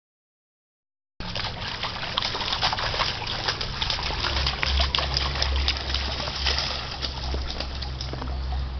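Feet splashing through shallow floodwater on a paved path: a steady run of many small splashes, starting about a second in, with a low rumble underneath.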